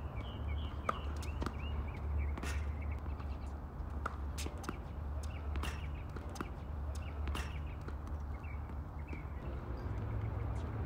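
Tennis ball bounced and struck by racquets on a hard court: a handful of sharp pops spaced through the middle of the stretch. Birds chirp faintly near the start and again near the end.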